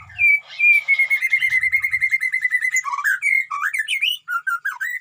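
White-rumped shama singing: a fast run of repeated notes at an even pitch, about eight a second, then quicker varied whistled phrases that rise and fall in pitch.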